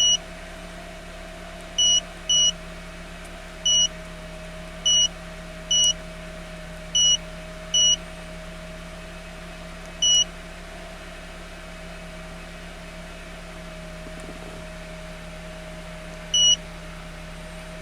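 Short electronic key-press beeps from the Autel AL539 handheld scan tool as its buttons are pressed to scroll through menus, about ten single beeps at irregular intervals, several in the first eight seconds and a last one near the end. A steady low hum runs underneath.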